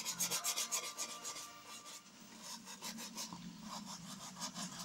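Stiff-bristled shoe brush scrubbing back and forth over a black leather shoe, working black shoe polish into the leather. Quick rasping strokes, several a second, fainter about two seconds in and then picking up again.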